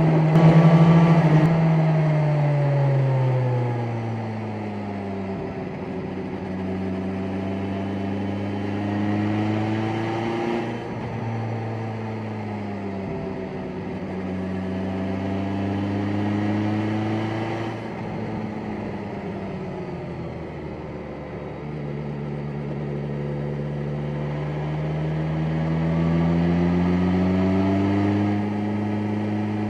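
BMW S1000XR's inline-four engine pulling in sixth gear at low revs: its pitch sinks over the first few seconds as the throttle closes, then rises and eases off again in long, slow sweeps as the rider opens and closes the throttle. A steady rush of wind and road noise runs beneath.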